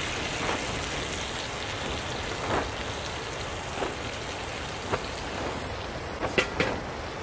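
Wooden fork scraping fried vegetables from one metal frying pan into another, with a few sharp clicks of utensil and pan, the last two close together near the end and the loudest. A steady rushing hiss lies under it all.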